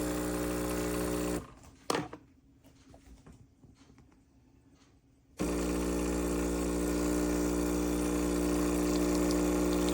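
The pump of an amzchef 20-bar espresso machine hums steadily while pulling a double shot of espresso. It cuts out about a second and a half in, with a single click just after. It starts humming again about four seconds later.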